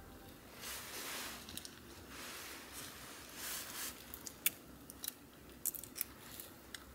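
Soft rustling of hands and a down jacket, then a few sharp little crinkles and clicks as a small plastic soy sauce packet is worked open between the fingers.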